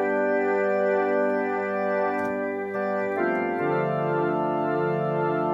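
Welson Globe-Trotter combo organ sounding a held chord with a slight wavering, changing to a new chord about three seconds in, with a lower note joining just after.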